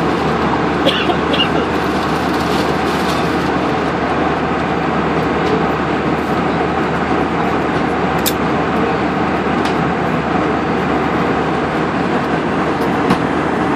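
Steady jet engine and airflow noise heard inside the cabin of an Airbus A320 in flight, even and unchanging, with a few faint clicks.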